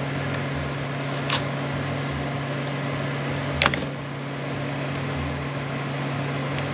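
Steady mechanical hum with a low throb about every second and a half, and two sharp metal clicks, about a second and a half in and more loudly near the middle, as parts of a T5 manual transmission are handled while a snap ring is worked onto its shaft.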